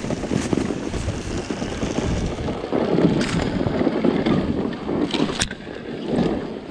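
Dirt bike engine running, heard as a ragged low rumble mixed with wind buffeting on the action camera's microphone, with a brief lull near the end.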